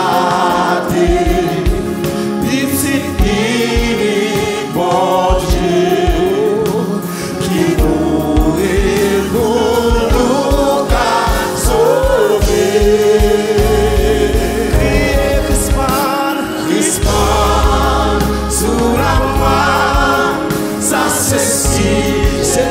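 Live gospel singing: a man leads a Haitian Creole hymn into a microphone, with other voices and band accompaniment keeping a steady beat underneath.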